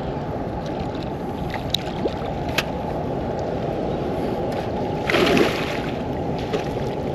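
Steady rushing of water from a river spillway, with a splash about five seconds in as a hooked muskie thrashes at the surface beside the boat.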